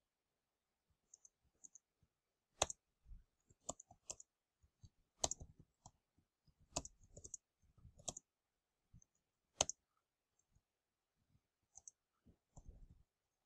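Faint computer keyboard keys clicking at an irregular pace as a short message is typed, with a few louder key strikes among softer ones.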